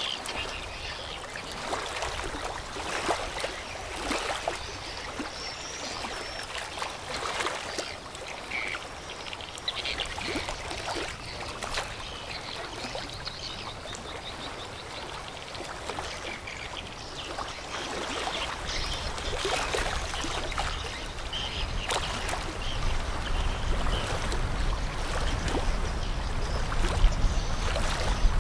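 River water lapping and splashing in irregular strokes, with a low rumble that grows louder over the last ten seconds as the passing container ship draws nearer.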